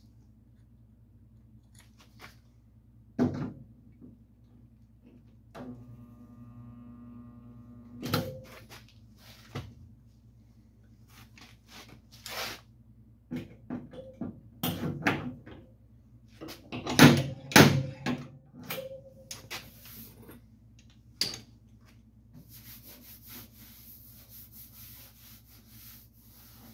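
Scattered sharp metallic knocks and clacks from pulling a dent out of a pickup's steel box side with a pin-welding dent puller, the loudest a pair of knocks about two-thirds of the way through. A short humming buzz comes about a quarter of the way in, and a hiss near the end.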